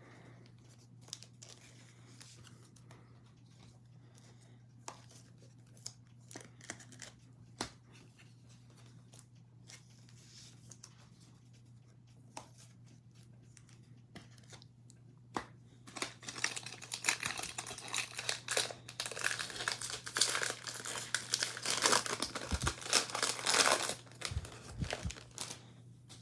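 Faint clicks and rustles of cards being handled, then from about 16 seconds in several seconds of loud crinkling and tearing, as of a foil trading-card pack wrapper being torn open. A steady low electrical hum runs underneath.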